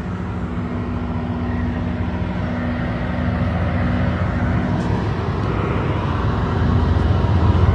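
Boat engine running steadily with a low hum, getting a little louder toward the end.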